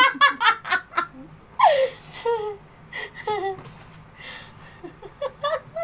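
Two women laughing, a quick run of ha-ha pulses at first, then fading into scattered, quieter giggles.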